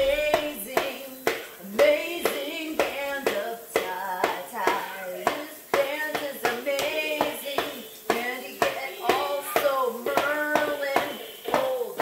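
Drumsticks tapping a children's toy drum set in a quick, uneven rhythm, with a woman singing along without words.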